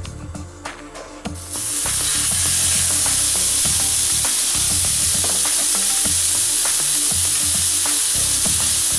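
Marinated pork neck steak laid on a hot ribbed grill pan, frying with a loud, steady sizzle that starts suddenly about one and a half seconds in. Before it, a few light clicks.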